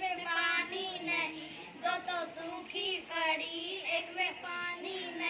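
A schoolboy singing a rhyme in a high child's voice, short sing-song phrases with brief breaks between them.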